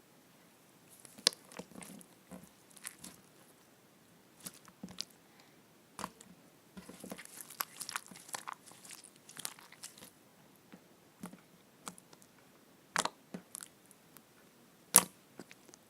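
Slime being squeezed and worked close up, making irregular sticky clicks, crackles and squelches, with a few sharp pops near the end.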